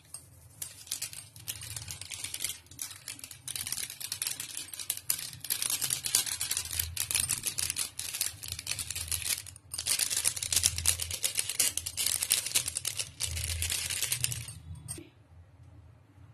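Small plastic Maggi masala sachet crinkling and rustling in the fingers as the spice is shaken out, a dense crackle of small clicks that dies away about a second and a half before the end.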